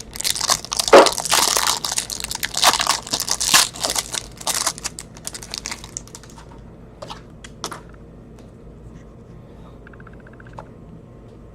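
Crinkling and tearing of a trading-card pack wrapper being opened and handled, dense and crackly for about the first six seconds. Then only a few light clicks from cards being handled.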